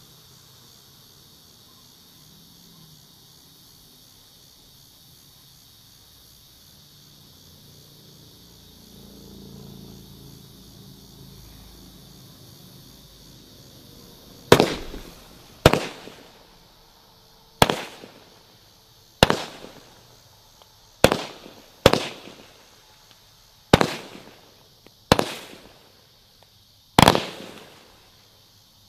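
Black Cat 'Smokin Guns' firework going off: about nine loud bangs at irregular gaps of one to two seconds, each with a short echoing tail, starting about halfway through. Crickets chirp steadily in the background.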